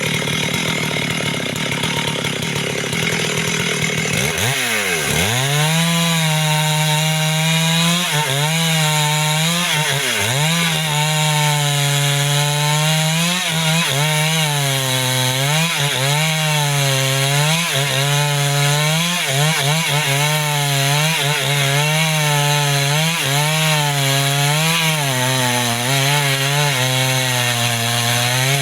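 Two-stroke chainsaw cutting into a mahogany trunk. From about five seconds in, its engine note sags and recovers every second or two as the chain bites under load.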